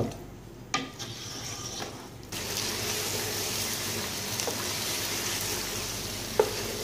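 Chicken drumsticks frying in ghee in a pot: a steady sizzle that cuts in suddenly about two seconds in, with a few light taps of the spatula against the pot.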